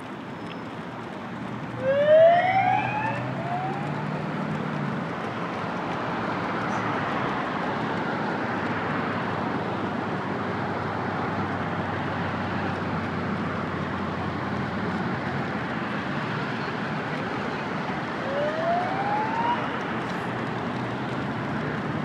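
A vehicle siren giving short rising whoops: a loud one about two seconds in with a fainter one just after, and another near the end. Underneath is a steady background hiss, and a vehicle engine hums low for a few seconds after the first whoop.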